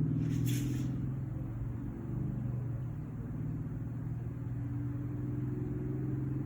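A motor vehicle engine running steadily in the background, its hum drifting slightly in pitch. There is a brief rustle about half a second in.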